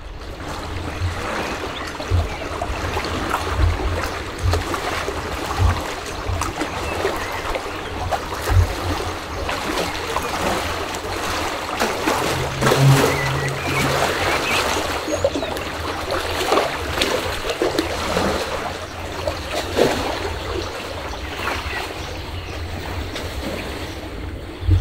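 Lake water lapping and splashing against a stone shore wall, with scattered low thumps and a brief low hum about halfway through.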